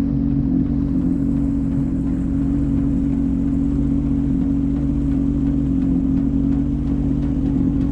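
Sea-Doo GTX 155 jet ski engine running at a steady speed while underway, a constant low drone with no change in pitch.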